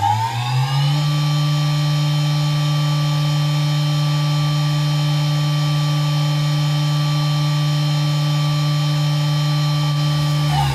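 Deckel Maho DMU 50 T CNC machining centre's spindle whining as it speeds up over about a second, then running steadily at the higher pitch. Near the end the pitch starts to fall.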